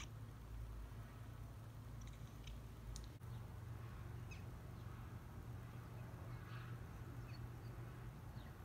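Faint, scattered bird chirps and calls from a cat-TV bird video playing through a tablet's speaker, over a low steady hum.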